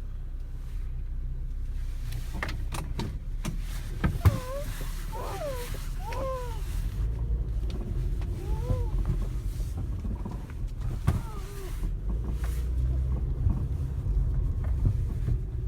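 Car interior noise while driving slowly: a steady low rumble of engine and tyres. A few clicks come about two to four seconds in, and several short squeaks between about four and nine seconds.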